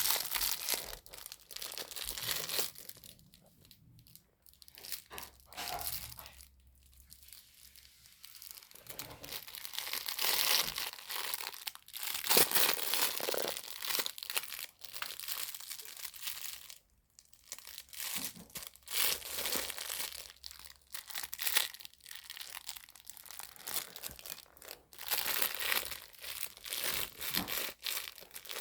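Crinkly pages of a cloth baby book being crumpled and squeezed by a baby's hands, crinkling in irregular bursts with short pauses.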